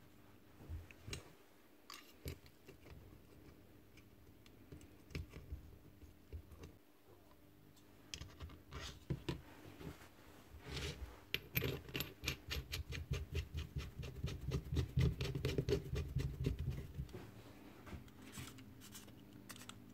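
Hand work on a cattle clipper head and its metal blades: scattered small clicks of parts being handled, then from about eight seconds in a run of quick scratching strokes, several a second, fading out near the end.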